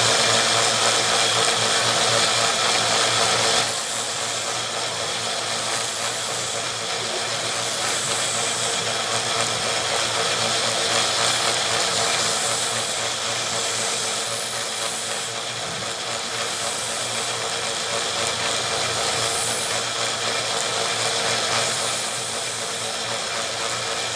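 Small belt sander running steadily with a low motor hum, as a popsicle-stick wood wedge is held against the belt to sand its taper. The rubbing noise of wood on the belt swells and fades as the piece is pressed on and eased off.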